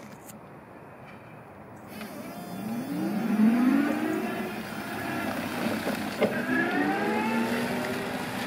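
Still R60-25 electric forklift driving off: its electric drive whines, rising in pitch as it pulls away about two and a half seconds in and rising again after the middle.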